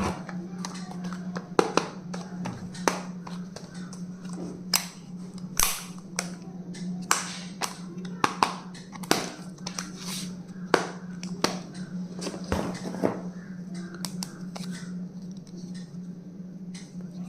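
Stationery items and their packaging being handled: irregular clicks and taps, a few every second, over a steady low hum.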